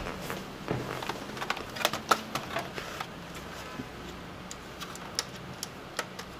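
Irregular light clicks and taps of hands handling the plastic and metal case of a partly assembled Dell Inspiron 1525 laptop as it is lifted and tilted, most frequent in the first three seconds.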